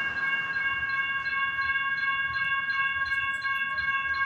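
Railroad crossing warning bell ringing steadily, about three strikes a second, with its ringing tones overlapping from one strike to the next.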